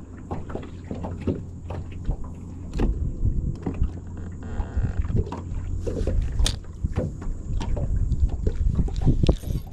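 Irregular knocks, clicks and handling noises in a small fishing boat over a steady low rumble.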